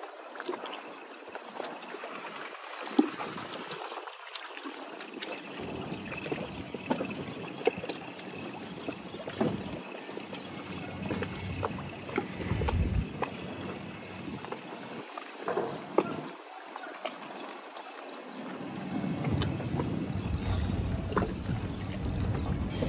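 Small waves lapping and gurgling against the hull of a moored rigid inflatable boat, with a few sharp ticks and knocks; its outboard is not running. Wind buffets the microphone in the last few seconds.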